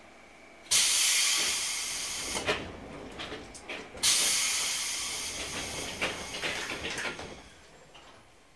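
Compressed air vented from a JR 205-5000 series commuter train's pneumatic system in two sudden hisses, about a second in and again about four seconds in, each fading over about three seconds, with a few clicks and knocks between them.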